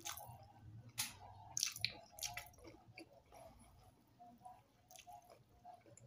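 A person chewing a mouthful of rice and fried tilapia with wet, squishy mouth sounds and several sharp lip smacks, most of them between about one and two and a half seconds in.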